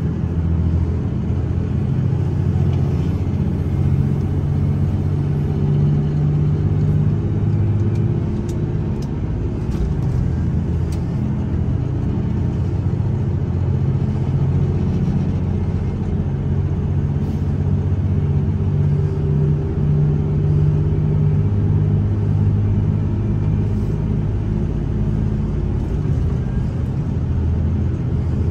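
Steady low rumble inside the cabin of a KiHa 283 series diesel express railcar under way, from its diesel engines and its wheels on the rails, with a few faint clicks about a third of the way in.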